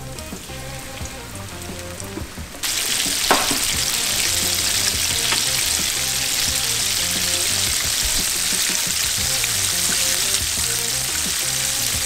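Flour-dredged grouper fillets deep-frying in hot peanut oil in a cast iron skillet: a softer sizzle at first, then an abrupt jump about two and a half seconds in to a loud, steady sizzle.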